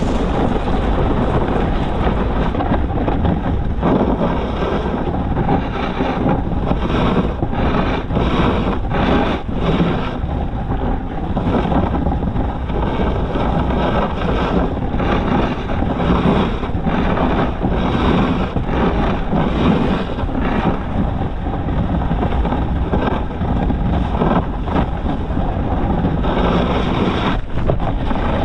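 Snowboard sliding and carving down a groomed slope, its edges scraping and hissing over the snow in uneven surges, with wind rushing over the microphone.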